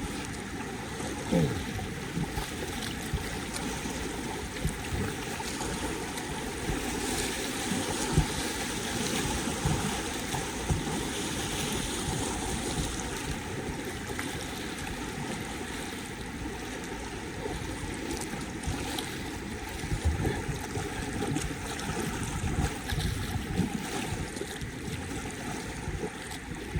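River current rushing and splashing around a kayak, with a few sudden knocks along the way.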